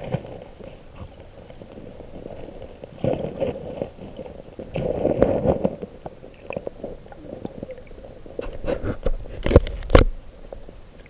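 Muffled underwater sound picked up by a submerged camera: irregular gurgling surges of moving water, then a run of sharp clicks and knocks near the end, the loudest two in quick succession.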